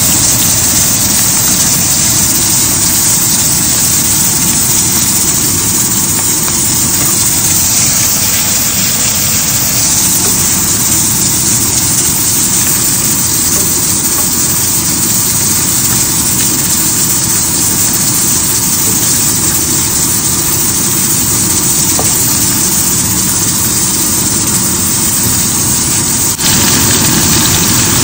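Sliced bitter gourd frying in hot oil in a pan: a loud, steady sizzle. Near the end it changes abruptly to a slightly louder sizzle of chopped onions and tomatoes frying.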